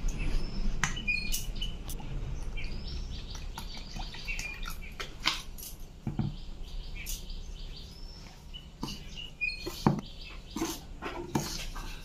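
A steel ladle scraping and clinking against a stainless steel bowl while stirring a thick rice-flour and curd batter, in scattered knocks. Birds chirp in the background.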